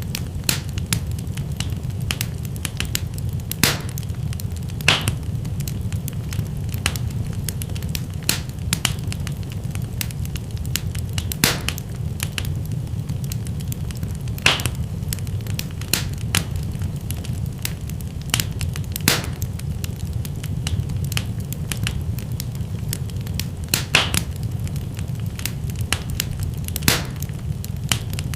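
Fire burning in a fireplace: a steady low rumble of flames with frequent small crackles and a louder pop every few seconds.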